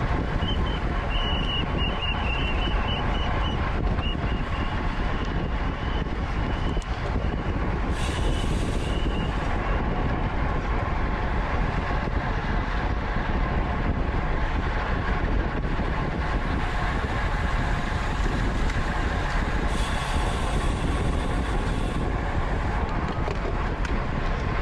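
Steady rush of wind and tyre noise while racing a road bicycle, with a thin high whine briefly about a second in and again about eight seconds in.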